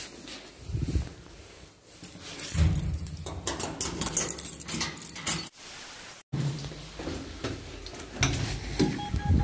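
Footsteps and clothing rustle while walking down an apartment-block stairwell, with irregular thumps and clicks. Near the end an electronic beep starts repeating in short pulses, the entrance door's intercom lock being released.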